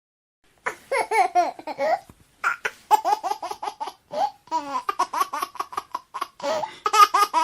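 A baby laughing in repeated runs of short giggles, starting after a short silence and picking up into a rapid chain of laughs about halfway through.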